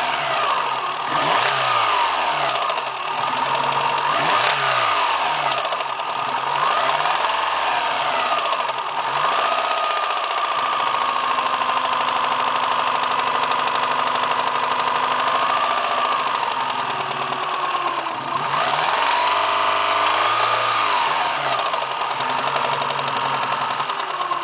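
Suzuki Swift GTi's twin-cam 16-valve four-cylinder engine, heard close over the valve cover, revved in a series of short throttle blips, then held at raised revs, blipped again and let drop back to idle near the end. A mechanical noise from the top end runs under it, which the owner suspects comes from the camshaft or the valves.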